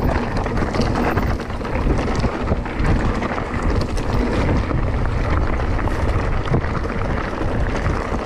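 Wind rushing over a mountain-bike camera's microphone, with the constant rattle and crunch of the bike rolling over a rocky trail.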